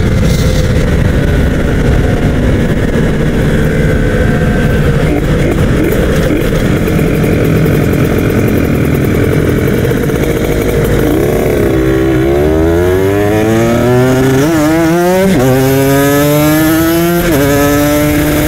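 Modified two-stroke Kawasaki Ninja RR 150 single running at a steady cruise with wind noise. About eleven seconds in it accelerates hard through the gears, its pitch climbing and dropping at three upshifts before settling to a steady run.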